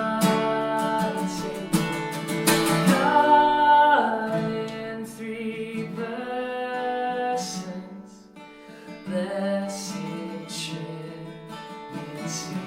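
A song sung to strummed acoustic guitar, with long held notes, getting quieter toward the end.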